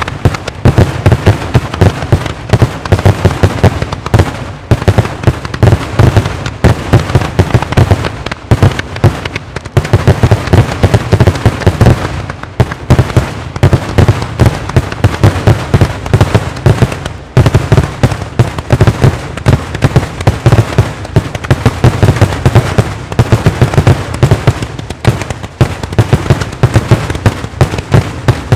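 Daytime aerial fireworks salutes bursting in a rapid, continuous barrage, with several very loud bangs a second overlapping one another and a few brief lulls.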